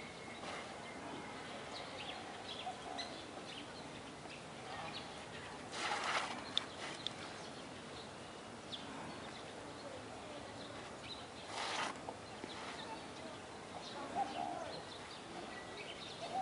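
Outdoor ambience with faint, scattered bird chirps and coos over a steady hiss, and two short rustling swishes about six and twelve seconds in.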